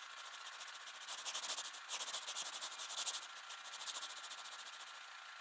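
Seismograph stylus scratching across paper: a rapid, dry rasping scrape that grows louder through the middle and eases off toward the end.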